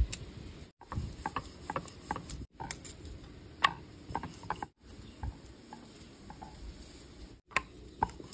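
Wooden rolling pin rolling out stiff dough on a wooden rolling board, with irregular light clicks and knocks of wood on wood.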